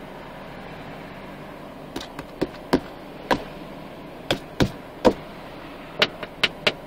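About a dozen sharp, irregular knocks on the car's body and glass, starting about two seconds in, as a monkey clambers on the car's roof; a low steady hum of traffic lies underneath.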